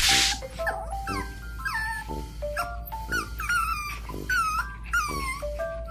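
Maltipoo puppy whimpering: about five high whines, each falling in pitch, over background music with a steady beat. A short, loud burst of noise comes right at the start.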